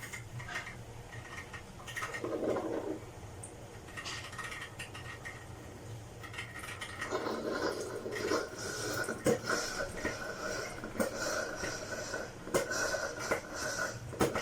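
Black+Decker CM618 single-serve coffee maker starting its brew cycle: water gurgling and sputtering through the machine, with light clicks. A short burst comes about two seconds in, and the gurgling turns more continuous about halfway through.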